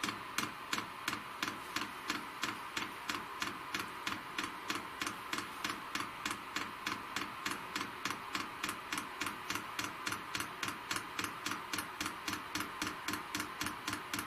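Diesel air heater's fuel dosing pump ticking in an even rhythm, about three clicks a second, as it pumps diesel during start-up priming.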